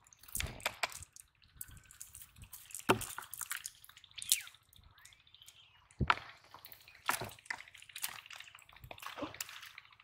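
Water dripping and splashing off a wet cast net as it is gathered up and handled in shallow water, in irregular sharp drips and splashes.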